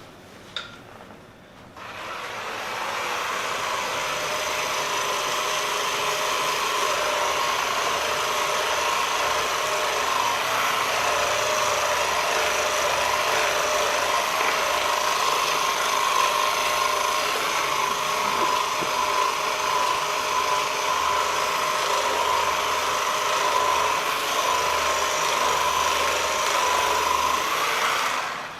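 Handheld percussion massage gun running steadily with a constant motor pitch, switching on about two seconds in and off near the end.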